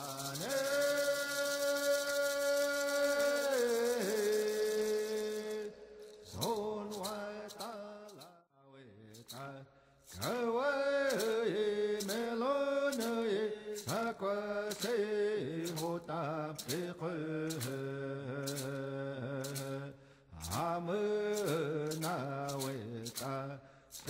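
A man's voice chanting in long held notes that slide from one pitch to the next, with brief pauses. From about ten seconds in, a regular beat of sharp percussive strikes runs under the chant.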